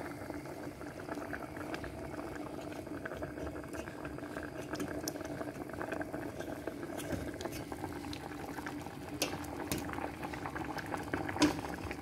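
Liquid bubbling at a steady simmer in a pot under a pressure-cooker steamer basket full of bread, with many small pops. A few sharp clicks come near the end, the loudest about eleven seconds in, as the metal basket is moved.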